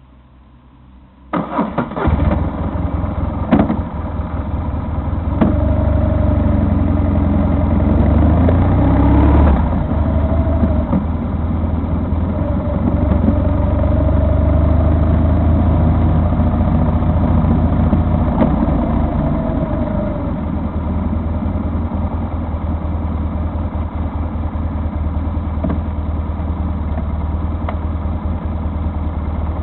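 A vehicle engine starting about a second in, running up with some revving, then settling into a steady idle.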